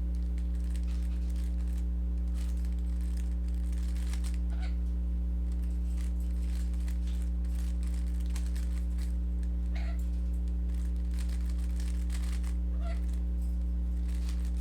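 Rubik's cube being turned through algorithms: faint, quick plastic clicks of the layers turning, in irregular runs, over a steady electrical hum.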